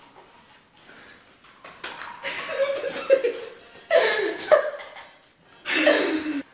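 Two boys laughing hard in three bursts: a longer one about two seconds in, another around four seconds, and a last one near the end.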